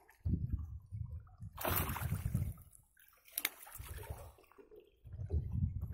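Water splashing at the side of a boat as a hooked fish is brought in to be landed, loudest about a second and a half in, with a sharp click a little later. Low buffeting on the microphone comes and goes throughout.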